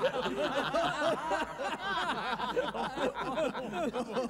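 A crowd of men laughing derisively together, many voices chuckling and snickering over one another.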